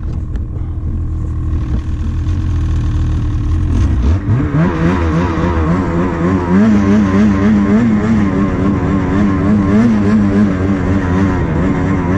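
Snowmobile engine idling low, then revving up sharply about four seconds in and running at high revs, its pitch wavering up and down as the sled pulls away.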